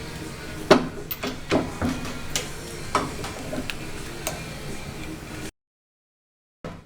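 A series of sharp clicks and knocks, like tools and metal parts being handled during repair work, over a steady low hum. The sound cuts out completely about five and a half seconds in.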